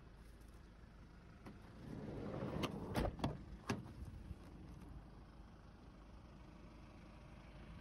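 A Hyundai Grand Starex van's door being handled and opened: a rising rustle, then a handful of sharp clicks and knocks about three seconds in.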